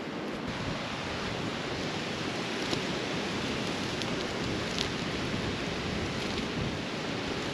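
Steady wash of wind and surf, with a few faint crackles from a burning driftwood fire.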